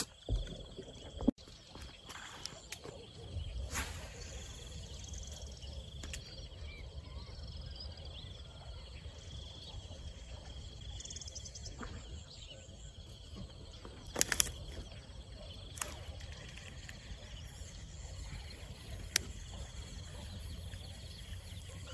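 Quiet open-air ambience: a steady low rumble, a faint steady high-pitched hum, and a few sharp clicks, two of them close together about two-thirds of the way through.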